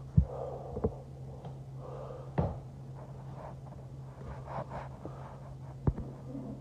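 Four short knocks or thumps, the loudest about a quarter second in and the last near the end, over a steady low hum.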